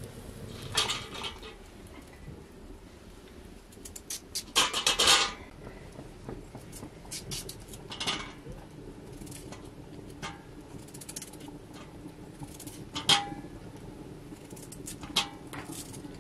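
Knife and potato pieces clinking against a steel colander as potatoes are peeled and cut: scattered sharp metal clinks, with the loudest, a short burst of rattling clatter, about five seconds in.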